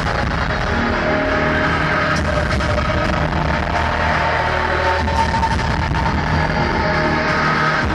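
Loud electronic music played live from a laptop: a dense, noisy wash with several held tones over it and no clear beat.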